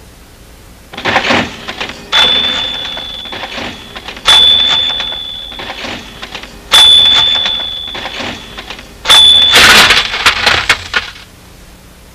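Soundtrack sound effects: a short clatter about a second in, then four sudden mechanical crashes, each carrying a steady high ringing tone that holds for a second or two and cuts off abruptly, with the noise dying away behind it.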